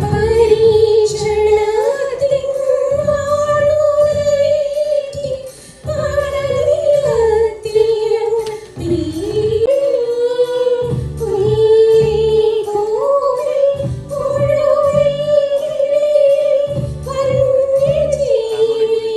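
A woman singing a slow melody into a microphone, holding long notes with vibrato, over an instrumental accompaniment with a pulsing bass.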